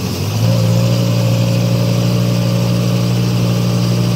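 Atek wheeled excavator's diesel engine running at raised revs, a loud steady drone that comes up about half a second in and holds an even pitch.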